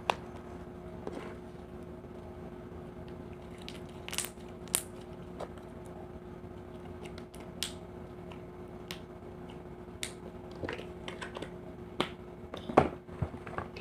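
Glossy, stretchy slime being squished and stretched by hand, making scattered soft clicks and pops, over a faint steady low hum.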